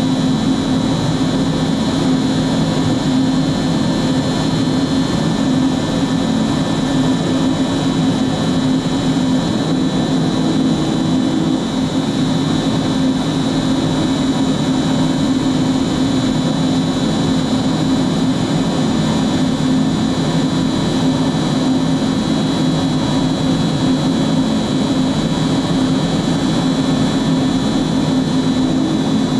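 MultiCam 5000 Series CNC router running, its spindle and dust extraction giving a steady high whine over a constant low hum.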